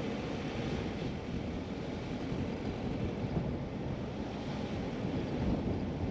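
Steady road and wind noise from a car driving along a paved street, with wind on the microphone.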